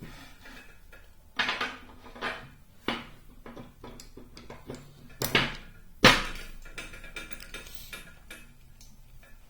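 Metal ratchet parts and hand tools clinking and knocking against a hard work surface while the ratchet is handled, with several sharp knocks. The loudest knock comes about six seconds in.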